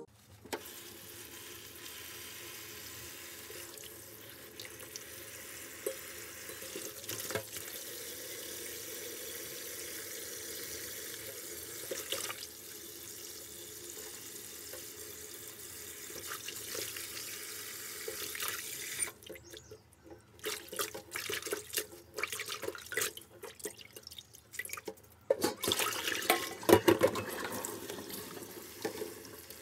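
Kitchen tap running as a spray onto leaves in a stainless-steel colander in a steel sink, with hands swishing and rubbing the leaves in the water. About two-thirds of the way through, the steady spray gives way to irregular splashes and clatter, loudest a few seconds before the end, and then the spray runs steadily again.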